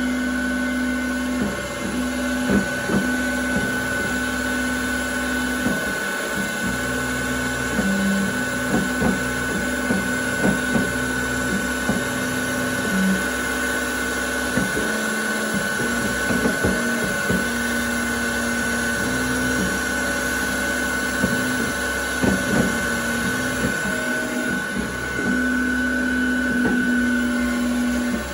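Little Machine Shop benchtop CNC mill engraving an aluminium plate. The spindle gives a steady high whine, while the lower hum of the axis stepper motors starts, stops and changes pitch as the table moves. Short clicks and knocks from the cut run throughout.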